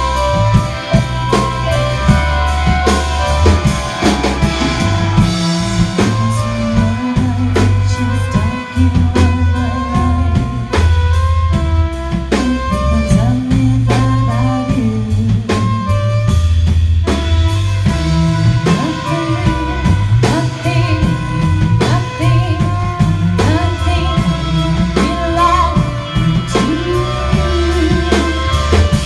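A band playing live, with a drum kit keeping a steady beat under bass, guitar and singing.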